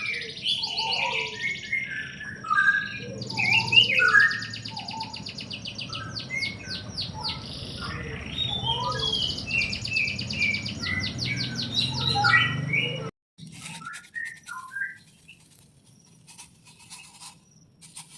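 Several small birds chirping, with repeated rapid high trills among quicker scattered chirps. About two-thirds of the way through, the sound cuts off abruptly, and only fainter, sparser chirps and clicks follow.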